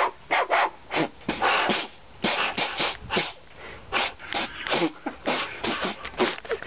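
Mouth beatboxing: a quick run of short percussive puffs and clicks made with the mouth, about three a second, with an occasional brief bassy glide.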